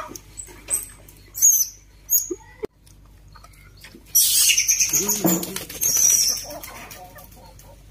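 Baby macaques squealing: a few short, very high, sliding squeaks, then about four seconds in a loud, harsh run of screeching lasting roughly two seconds.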